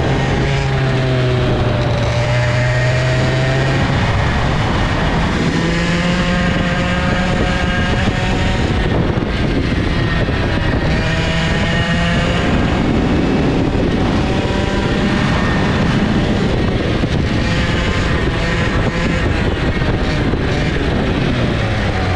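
Old IAME two-stroke kart engine running on track, heard from on board. It holds a lower pitch for the first few seconds, climbs about four seconds in, then rises and falls with the throttle through the turns, and drops low again at the end as the kart slows for a tight hairpin.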